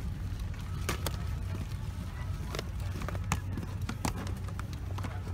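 Steady low rumble of a Boeing 777 airliner cabin, with a scattering of sharp clicks and taps from hands handling the plastic seat-back tray table and plastic wrapping.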